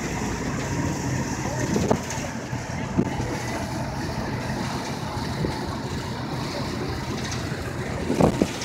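A passenger boat's engine running steadily under way, mixed with the rush of its wake and wind on the microphone. A few short knocks stand out: about two seconds in, at three seconds, and near the end.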